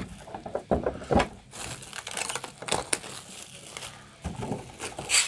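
Thin clear plastic film crinkling and crackling as it is peeled off a clear plastic Funko Pop protector case, with a few sharper crackles, the last near the end.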